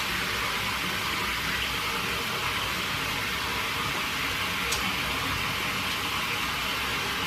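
Handheld shower running steadily into a bathtub as a small dog is washed, an even hiss of water, with a faint tick about five seconds in.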